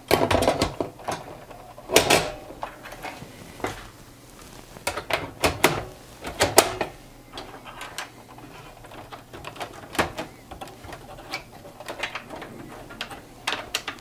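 Irregular clicks, clacks and knocks of the sheet-metal drive cage, optical drive and cable connectors being handled and fitted back into a Dell OptiPlex 7010 small-form-factor PC case, the loudest about two seconds in and again after six seconds.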